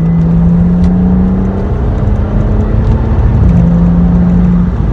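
BMW 3 Series (E90/E92) engine under hard acceleration at wide-open throttle, a loud steady drone that starts abruptly and shifts pitch a couple of times. It pulls smoothly with no stutter, its VANOS solenoids freshly cleaned.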